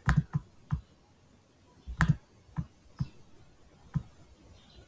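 Computer mouse clicking: about eight sharp clicks at irregular intervals, a couple of them in quick pairs.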